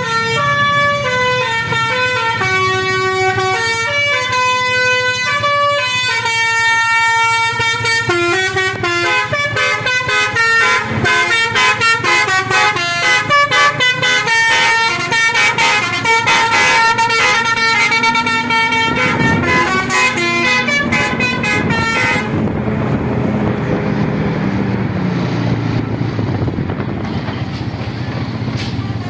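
Basuri telolet horn on a tour bus playing a quick tune of stepped, pitched horn notes. About twenty-two seconds in, the tune stops and only the bus's engine and road noise go on.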